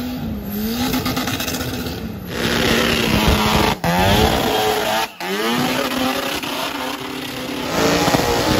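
Engines revving hard during tyre-smoking burnouts, the pitch rising and falling as the throttle is worked. The sound breaks off abruptly twice, about four and five seconds in, and a different engine picks up each time.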